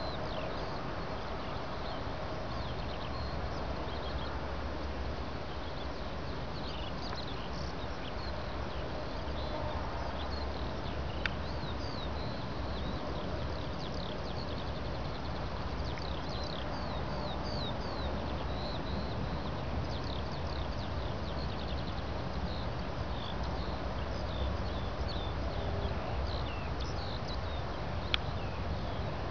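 Many small birds chirping in short, high, falling notes over a steady low rumble that hardly changes in level.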